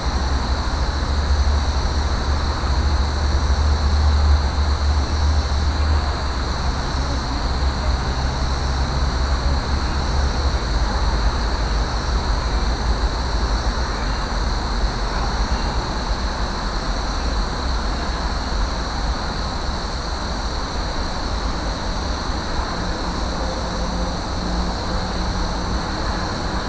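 Steady outdoor background noise: a low rumble like distant traffic, strongest for the first several seconds, under a constant high-pitched whine.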